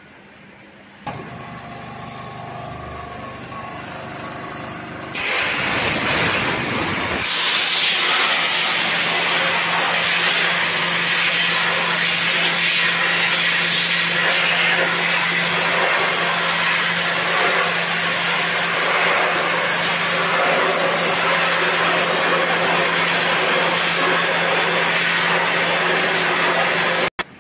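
500-bar high-pressure wet abrasive blasting jet of water and copper slag. A lower machine hum starts about a second in. About five seconds in the lance opens with a sudden loud blast that settles into a steady, loud hiss of the jet striking the steel plate, over a steady pump hum, until it cuts off abruptly near the end.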